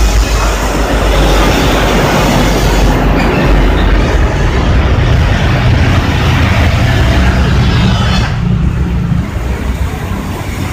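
Loud vehicle noise: a heavy road vehicle's engine and tyres passing close by. The hiss eases off about eight seconds in.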